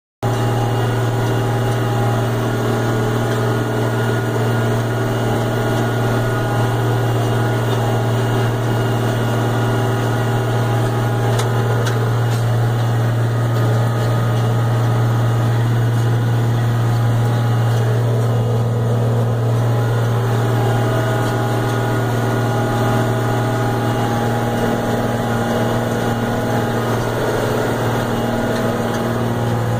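Case 4890 four-wheel-drive tractor's diesel engine running steadily under load, pulling a disk and rolling basket through the field, heard from inside the cab as a constant deep drone.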